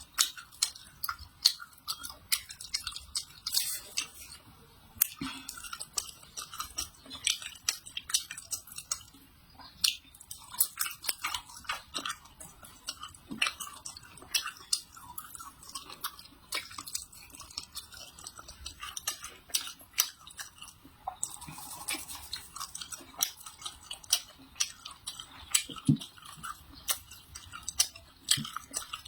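Close-up chewing and crunching of food, with many quick, sharp crunches.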